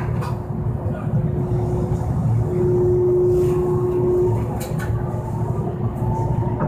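Toyohashi Railroad Mo780 tram heard from inside while running along the street: a steady rumble of wheels and running gear with a motor hum that grows louder for a couple of seconds midway, and a few short clicks a little later.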